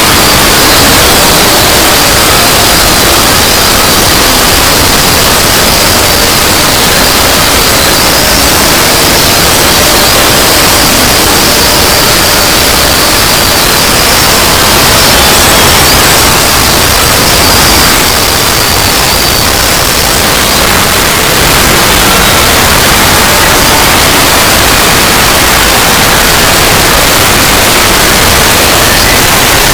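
Very loud, harsh static-like noise filling every pitch, steady throughout. A faint high whine wavers along the top for most of the first two-thirds.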